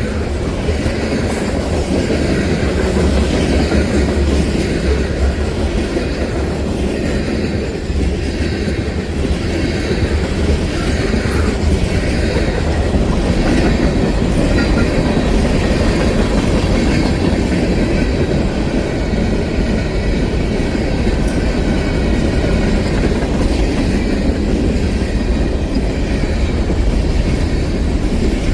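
Long freight train rolling past: the steady rumble of the cars with their wheels clicking over the rail joints.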